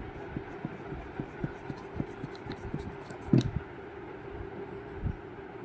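Soft taps and clicks, about three or four a second, with one louder knock about three and a half seconds in, over a steady low hum.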